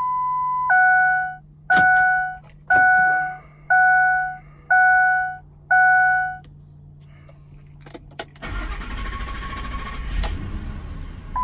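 2003 Ford Expedition's dashboard warning chime: a short steady tone, then six dings about one a second. About eight seconds in, clicks from the ignition are followed by the engine cranking and catching, and it runs on steadily after a sharp click.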